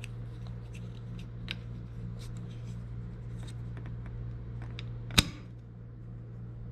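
Small plastic clicks and taps as a cable-management clip is handled and pressed onto a monitor arm, with one sharp snap about five seconds in as it goes on, over a steady low hum.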